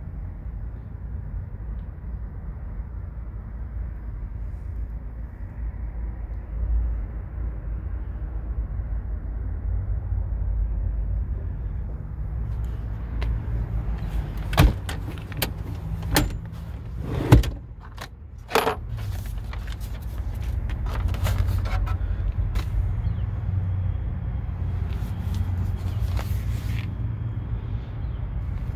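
Handling noise inside a Jeep Wrangler's cabin: a steady low rumble, then a cluster of sharp knocks and clicks about halfway through as things are handled.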